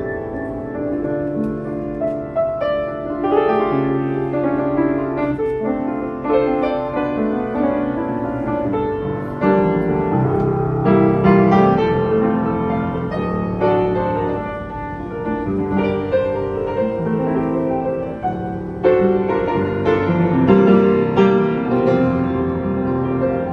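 Yamaha U30 upright piano being played, with chords and a melody running continuously, as a sound check of the instrument.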